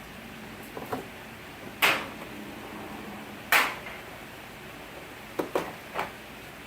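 A series of sharp knocks and clicks over a steady hiss: a pair of small clicks about a second in, two loud single knocks about two and three and a half seconds in, and three quicker clicks near the end.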